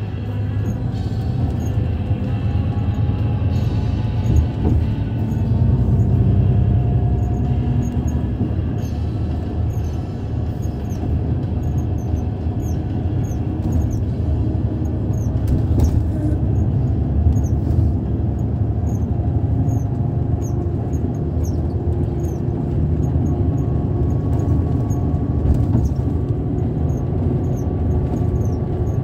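Steady low road and engine rumble heard from inside a moving vehicle at highway speed, with faint high squeaks repeating through it.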